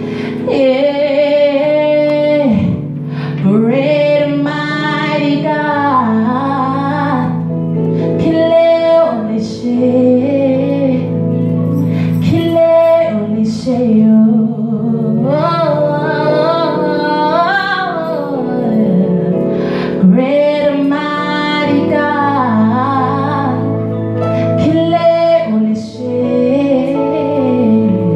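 A woman singing a worship song solo into a microphone, her melody gliding and held on long notes, over an instrumental backing of steady sustained chords.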